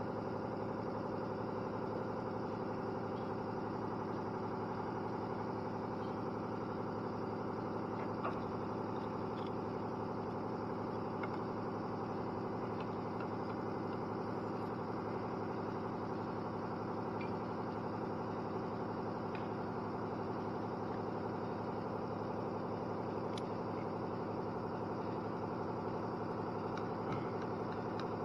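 John Deere 324G skid loader's diesel engine idling steadily, with a few faint clicks of tools or parts.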